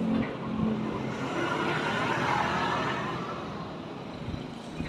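A road vehicle passing on the street, its noise swelling to a peak about two seconds in and then fading away.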